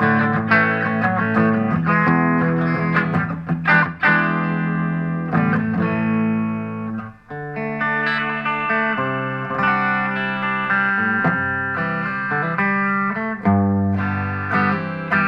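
Fender Modern Player Telecaster's bridge humbucker, played clean through a Vox VT20X amp: open chords strummed and left to ring, with a brief break about seven seconds in.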